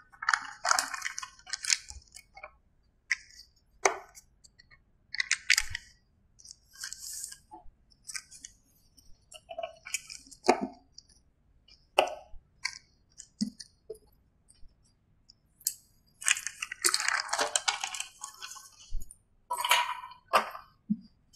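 Handling noise at a whiteboard: a large paper chart rustling, and short hard clicks and clinks of magnets and markers against the board and its tray.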